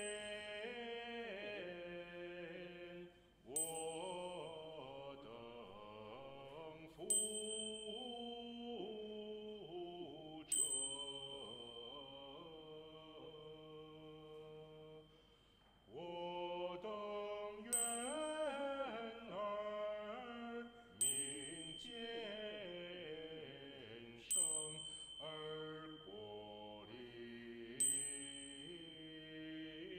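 Small choir singing in a slow, chant-like style, holding long notes in phrases. A small bell is struck about every three and a half seconds over the singing, ringing on after each strike.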